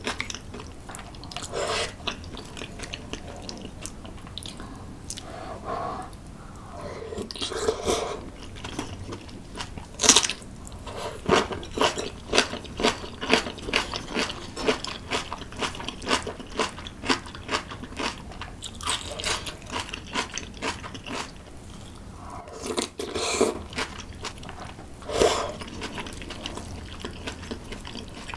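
Close-miked chewing and biting of food, with a steady run of crisp crunches, two or three a second, through the middle.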